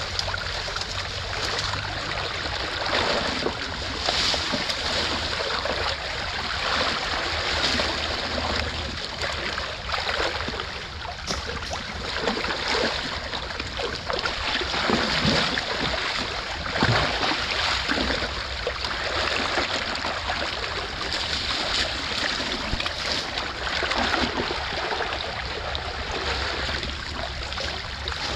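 Shallow creek water rushing and gurgling steadily, with irregular splashing as rubber boots stir through the flow.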